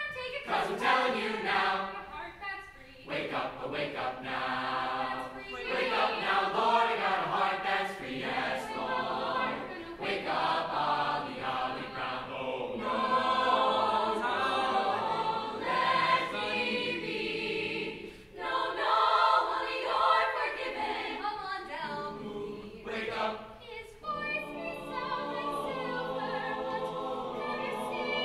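Mixed high-school choir of men and women singing together, in phrases separated by brief breaks.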